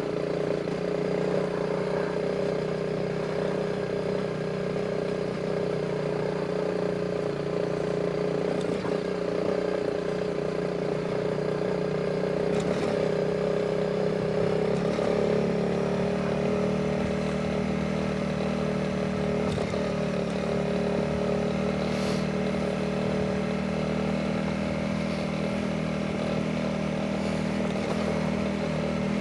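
Honda CRF300 Rally's single-cylinder engine running steadily at a low, even pace, its note shifting slightly about halfway through, with a few light knocks.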